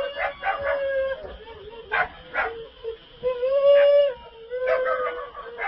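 A man wailing and sobbing: a long, howl-like crying voice that wavers and breaks into sobs, swelling to its loudest about three and a half seconds in.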